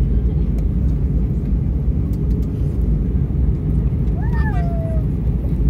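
Jet airliner cabin noise: the steady low rush of the engines and airflow heard inside the cabin in cruise. About four seconds in, a brief high voice rises then falls over it.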